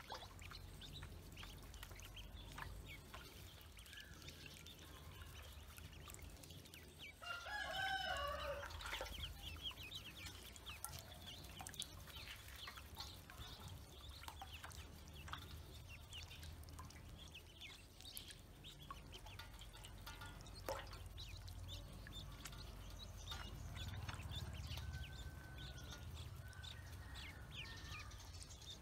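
Ducklings paddling and jostling in a shallow metal basin of water, with small splashes, drips and faint chirps throughout. About seven seconds in, a louder bird call wavers up and down for under two seconds.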